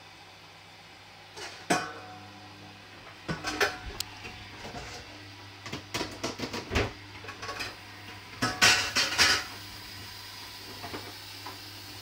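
Hoover Dynamic front-loading washing machine tumbling its drum on the rinse, with clusters of sharp metallic clanks every couple of seconds as the denim jacket's metal buttons strike the drum, over a steady low hum.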